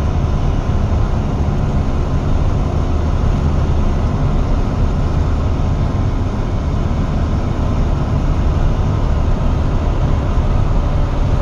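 Steady low rumble of a 26 ft box truck driving through a road tunnel, heard from inside the cab: engine and tyre noise, strongest in the low end and even throughout.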